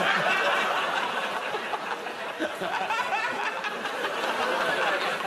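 Studio audience laughing in response to a punchline, with panellists laughing along; the laughter slowly fades toward the end.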